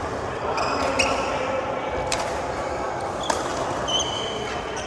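Badminton rally: three sharp racket hits on the shuttlecock about a second apart, with short high squeaks of court shoes on the floor.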